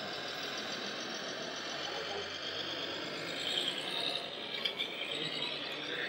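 Radio-controlled scale tipper truck with drawbar trailer driving slowly, its drive running under the steady murmur of a busy exhibition hall, with a few light clicks and rattles about four to five seconds in.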